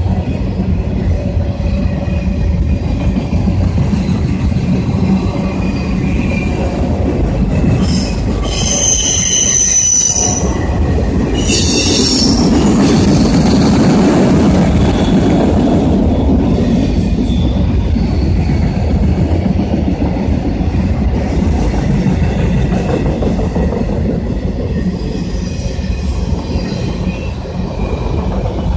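Train cars rolling past with a steady heavy rumble, and the wheels squealing in two short high-pitched bursts, around eight and again about twelve seconds in.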